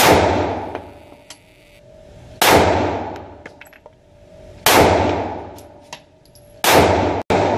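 Kahr CW380 .380 ACP pistol firing four shots about two seconds apart, each sharp report ringing out in the echo of an indoor shooting range.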